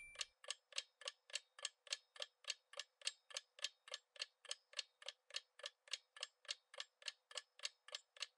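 Countdown timer sound effect: a clock ticking evenly and faintly, about three and a half ticks a second.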